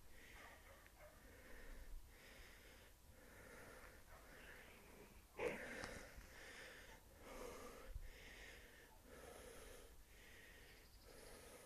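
Faint, heavy breathing of a person walking, about one breath a second, with a louder breath about five and a half seconds in.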